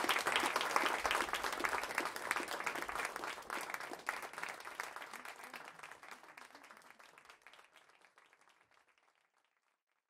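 Audience applauding, the clapping fading gradually away.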